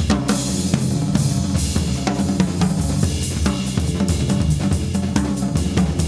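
Two drummers playing together, one on a snare drum and one on a full drum kit, with fast, dense snare, bass drum and cymbal strokes. Steady low Hammond organ notes are held underneath.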